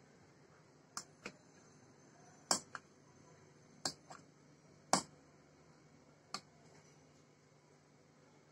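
A metal fork clicking against a plate as it cuts into pieces of set pudding: about eight sharp clicks, several coming in quick pairs.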